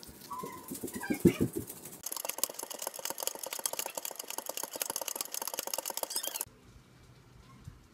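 Knife being sharpened on a Wicked Edge guided sharpening system: stones on guide rods are stroked rapidly along the clamped blade, a fast, rasping scrape that stops suddenly near the end. Before it come knocks and clatter from handling the stones.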